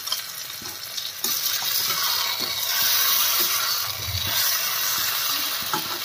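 Chilli paneer sizzling and frying in a kadhai as cornflour slurry is poured in and stirred with a slotted spoon. The sizzle grows louder about a second in, with light scraping of the spoon against the pan.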